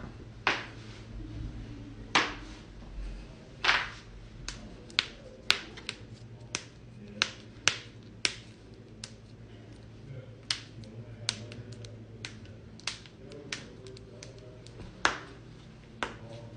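Joints cracking: a series of about twenty sharp, separate pops at irregular spacing, the loudest about two seconds in and near the end.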